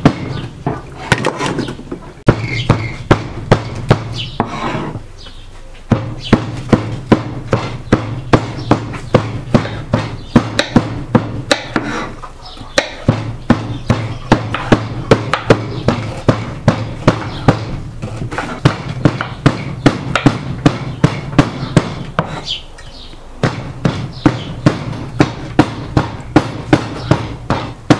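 Kitchen knife chopping an onion on a wooden cutting board: even knocks at about three a second, stopping briefly twice.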